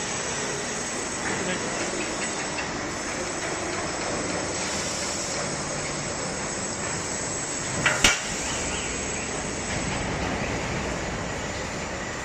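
Large CNC hydraulic press brake running with a steady hum and hiss, and one sharp metallic clank about eight seconds in.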